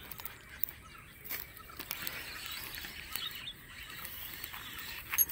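Quiet outdoor ambience with faint birds and insects chirping, and a few light clicks, the sharpest one near the end.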